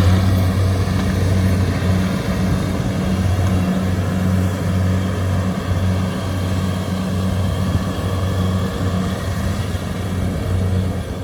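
Kubota DC-70 Plus combine harvester's diesel engine running steadily with a deep hum while harvesting rice, along with the machine's own mechanical noise.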